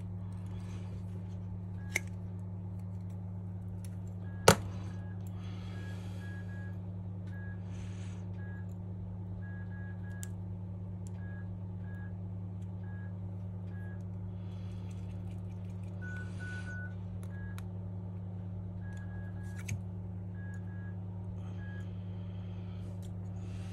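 Small-parts handling during a phone teardown: a precision screwdriver and fingers working on the phone's frame, with scattered rustles and a few sharp clicks, the loudest about four and a half seconds in. Under it runs a low steady hum, with short faint high beeps now and then.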